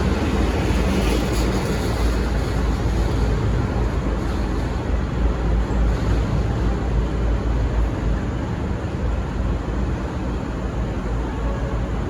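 Diesel passenger train departing: a loud, steady low engine sound with a rushing noise over it, easing off slowly. No horn sounds.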